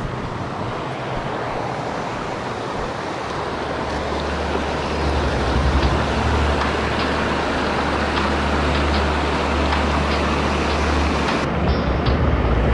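Mountain stream rushing over boulders and small cascades, a steady rush that grows fuller and louder about four seconds in.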